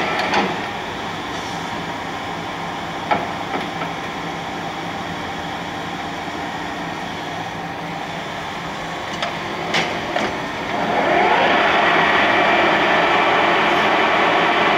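1981 Clausing Colchester 8054 geared-head lathe running through its speeds: a steady gear whine with a few sharp clunks as the speed levers are shifted, then about ten seconds in the spindle spins up and the whine rises in pitch and grows louder.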